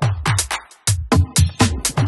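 Dark, dubby electronic house music with solid drums and sharp, bright percussion. The beat drops out for a moment just before a second in, then comes back.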